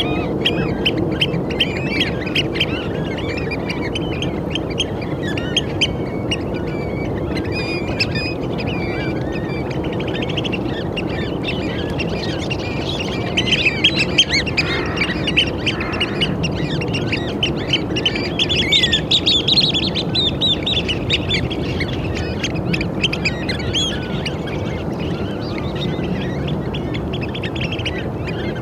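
A flock of Eurasian oystercatchers calling: many short, shrill piping calls overlapping continuously, with louder flurries about halfway through and again a few seconds later, over a steady low background rumble.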